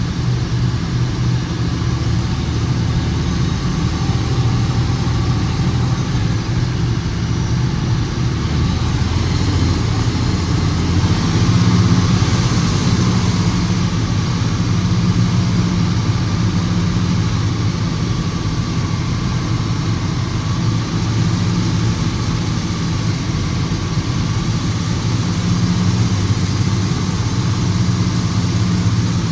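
Heavy diesel engine running steadily at low speed, getting a little louder for a few seconds before the middle.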